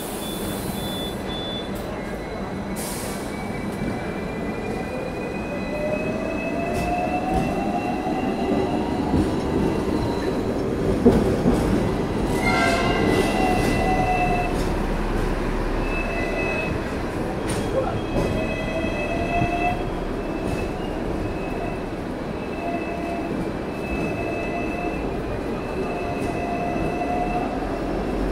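Hong Kong double-decker electric tram running on its street rails, heard from on board: a steady rumble with a whine that rises in pitch over several seconds, a single knock about eleven seconds in, then high wheel squeals that come and go.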